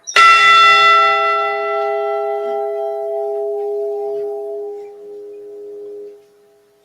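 A single strike on the recovered ship's bell of the SS Edmund Fitzgerald, tolled once for a named crew member. It rings out with a clear, long-sustaining tone for about six seconds, then is damped suddenly near the end.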